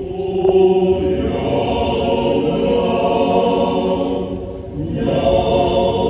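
A crowd of voices singing together in unison, holding long notes, with a brief dip about four and a half seconds in before the singing swells again.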